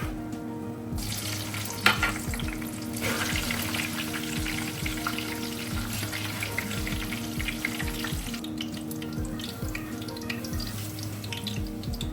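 Food sizzling and crackling in hot oil in a pan, easing off about eight seconds in and picking up again near the end, with one sharp knock about two seconds in. Soft background music with a steady beat underneath.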